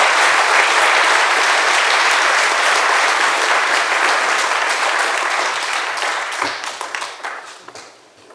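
Audience applauding steadily, then thinning to scattered claps and dying away near the end.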